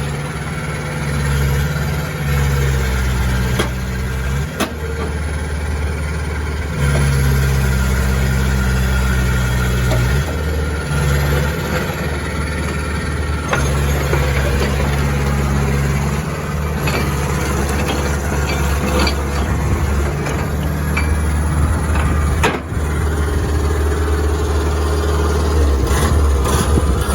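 Hitachi EX150 excavator's diesel engine running, its note shifting up and down every few seconds, with a few sharp knocks along the way.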